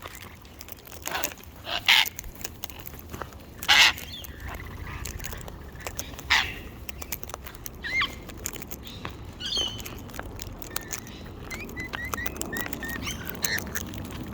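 Wild parrots calling: three loud, harsh screeches in the first half, then lighter chirps and short rising notes near the end.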